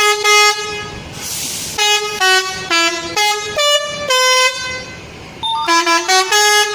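Telolet musical air horn playing a tune of quick, stepped notes in three loud phrases, with a short hiss between the first and second phrase.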